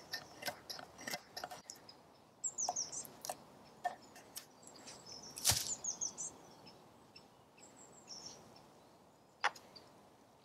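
A few scraping strokes of a stainless knife blade carving dry, hard blackthorn, then scattered clicks and knocks as the knives are handled, the loudest a sharp click about five and a half seconds in. A small bird chirps a few times.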